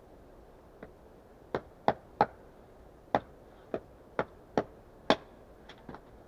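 Axe chopping wood: about ten short, sharp chops at a quick, uneven pace, with two lighter taps near the end.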